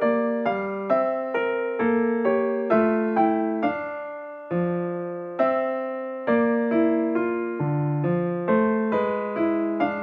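Background music: a piano-type keyboard playing a slow tune, a new note or chord struck about once a second and each fading away.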